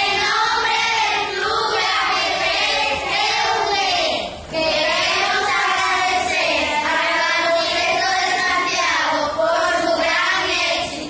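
A group of children chanting a thank-you message in unison, a chorus of young voices with a brief pause about four seconds in.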